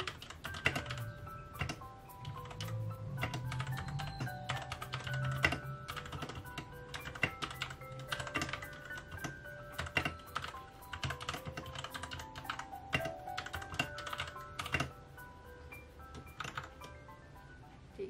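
Typing on a Royal Kludge RK61 mechanical keyboard: irregular clacking keystrokes, thinning out near the end, over soft background music.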